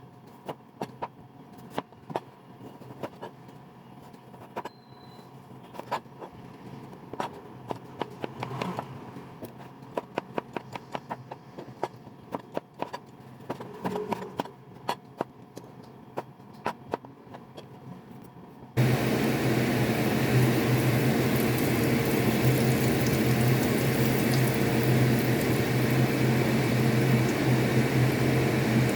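Scattered clicks and knocks of kitchen handling, then, about 19 seconds in, a fan-driven kitchen appliance switches on suddenly and runs with a steady hum and whoosh.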